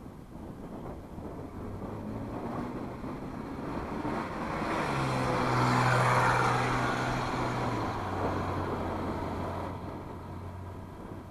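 A car driving past on the street: its engine and tyre noise swell to a peak about six seconds in, then fade away, the engine note dropping slightly in pitch as it goes by.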